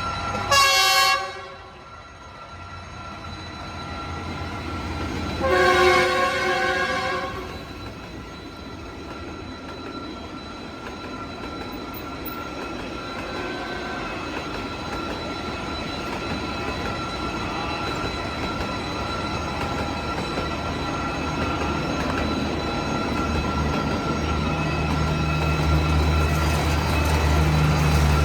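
Diesel locomotive horn sounding twice, a short blast and then a longer one about five seconds later. It is followed by the steady rumble and rail noise of the approaching train, with the engine's low drone growing louder near the end.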